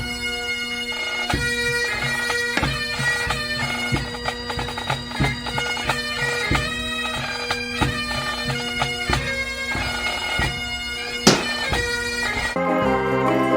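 Background music: a melody over a held drone and a steady, regular beat, changing to a new passage near the end.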